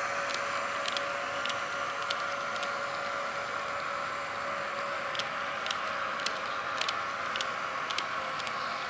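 Märklin H0 model train with loaded log wagons running along the track: a steady whir, with irregular sharp clicks as the wheels pass rail joints.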